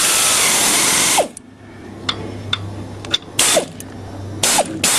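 Air-powered wrench driving the crankshaft bolt of a lawn tractor engine: one long run of about a second at the start, then a few short bursts near the end.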